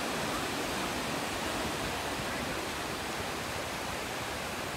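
Steady wash of breaking surf with wind on the beach, an even hiss that does not change.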